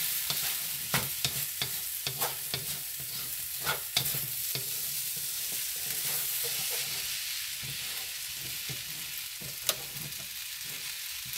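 Chicken fried rice sizzling in a wok while a wooden spatula stirs and scrapes through it. There is a steady hiss of frying, broken by irregular scrapes and knocks of the spatula against the pan, with one sharp knock near the end.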